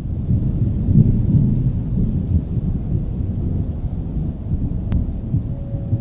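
Deep, low rolling rumble like distant thunder, with one sharp click about five seconds in. Soft, sustained music tones come in near the end.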